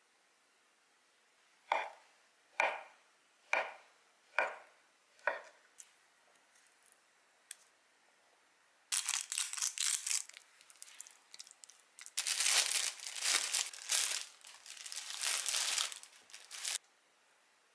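Food preparation: five chopping strokes about a second apart, then two long runs of mixing and rustling noise that stop suddenly near the end.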